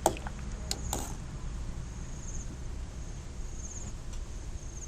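Steady low rumble of a pot of water boiling dumplings on the stove, with a couple of light clicks in the first second. Faint insects chirp in the background in short high trills, a few times.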